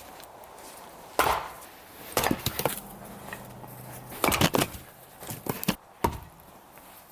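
A series of sharp, irregular knocks and crunches, spaced unevenly, the loudest clusters about a second in, around two seconds and past four seconds.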